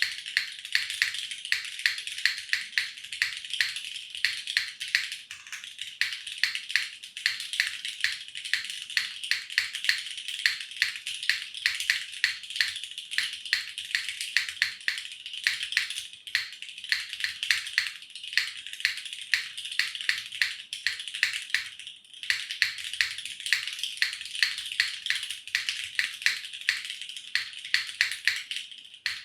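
Continuous fast typing on a Leviatán R0 custom mechanical keyboard, a plateless, gasket-mounted build with Cherry MX Black linear switches, Staebies stabilizers and GMK keycaps. A rapid run of high-pitched clacks, with a brief pause about 22 seconds in.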